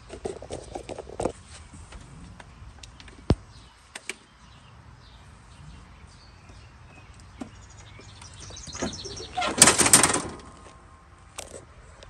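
Small clicks and knocks of hands working at the mower's seat safety switch and wiring, then a loud clattering rattle about ten seconds in as the Toro TimeCutter zero-turn's seat is swung back down onto the frame.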